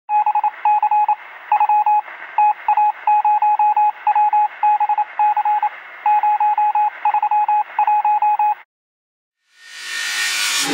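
Electronic beeping at one steady pitch over a hiss, in quick short and longer pulses like Morse code over a radio or phone line, stopping after about eight and a half seconds. A noisy whoosh then swells up near the end.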